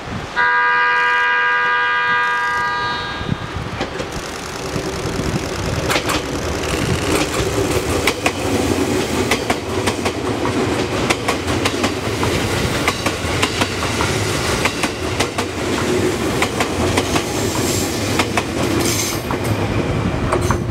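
JR Kyushu 787 series electric express train gives one long horn blast about half a second in. It then passes close by with a steady rumble and its wheels clacking over the rail joints.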